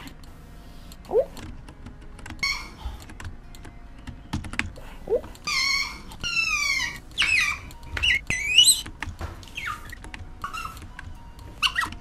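Recorded animal noises playing back from a funny-animal compilation: a run of high-pitched squealing calls that glide down and up in pitch, starting about halfway through. Computer mouse and keyboard clicks come throughout.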